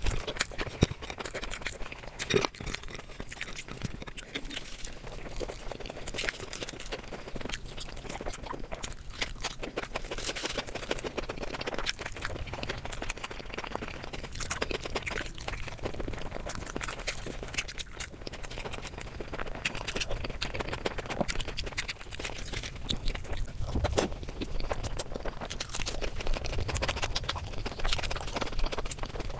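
Close-miked eating sounds: wet chewing, lip smacks and mouth clicks, coming in quick irregular bursts.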